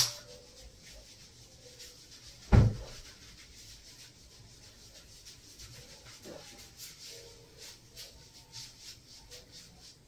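Back walking: bare feet pressing down on a person's spine, with a sharp crack right at the start and a heavier low thump about two and a half seconds in, then faint rubbing of feet on clothing.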